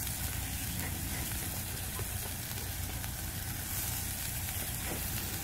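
Fish sauce and rendered pork fat sizzling steadily in a very hot clay pot, with a heap of sugar just added to it.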